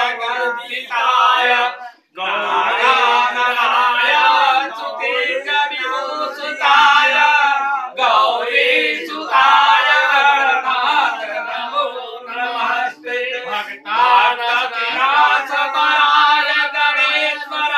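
Several men singing a Hindu devotional chant together, unaccompanied, in long phrases with short breaks between them.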